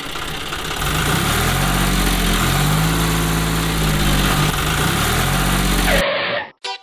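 Tractor engine running steadily, its low pitch rising and falling a little, cutting off suddenly about six seconds in.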